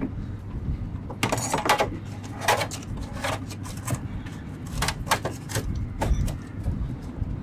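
Irregular knocks, clunks and short clatters as hoses and parts of a manual bilge pump are handled at an open cockpit hatch, over a steady low hum.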